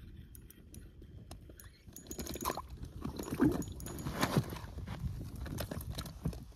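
A panfish being landed through an ice-fishing hole: a run of irregular knocks, taps and slaps of the fish and line handling on the ice, busiest and loudest from about two seconds in.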